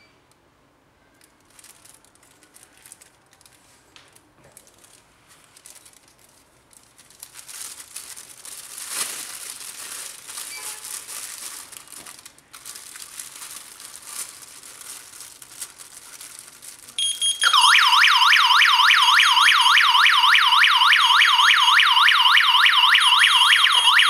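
Plastic bag crinkling as it is wrapped around a carbon monoxide detector. About seventeen seconds in, a loud electronic alarm cuts in, a siren sweeping rapidly up and down several times a second: the CO alarm has been triggered.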